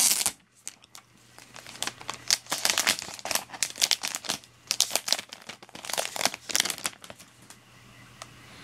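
Thin clear plastic protective film being peeled off the back of a new iPad, crinkling and crackling irregularly; it stops about seven seconds in.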